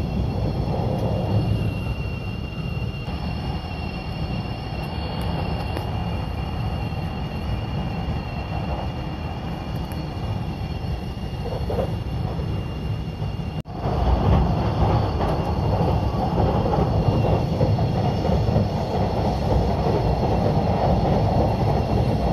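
Steady running rumble of a 651 series limited-express electric train, heard from inside the passenger cabin while it travels. Just past the halfway point the sound cuts out for an instant and comes back louder.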